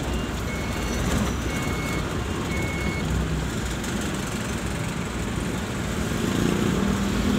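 Truck's reversing alarm beeping about once a second, stopping about three seconds in, over the steady low running of the truck heard from inside the cab.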